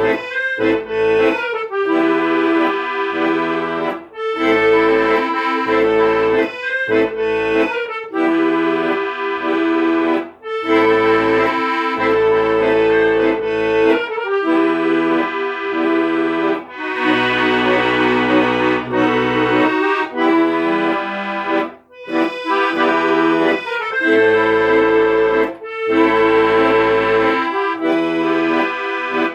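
Accordion playing a tune in sustained chords over low bass notes, with short breaks between phrases.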